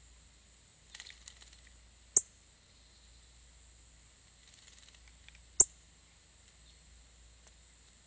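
Small bird bathing in a bird bath: two short bouts of soft splashing about a second in and again near the middle, with two sharp, loud clicks.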